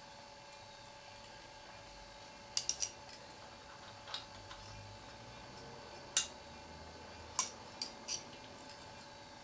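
Spanner clinking against the valve rocker's adjusting screw and locknut on a Simson AWO 425 T's single-cylinder four-stroke engine as the valve clearance is readjusted. There are sharp metallic clicks: three in quick succession about two and a half seconds in, then single clinks spread through the rest and a pair near the end.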